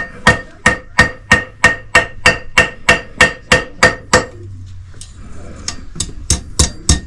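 Blacksmith's hammer forging a fire striker on an anvil: a steady run of about fourteen ringing blows, about three a second, then after a short pause a few lighter blows near the end.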